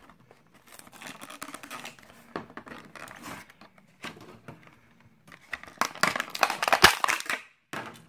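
Clear plastic toy packaging crinkling and crackling in the hands as a die-cast car is taken out of its blister and plastic bag, in scattered bursts that grow denser and louder about six seconds in.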